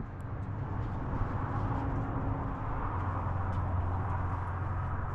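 A steady low engine-like hum, with a faint held tone through the middle.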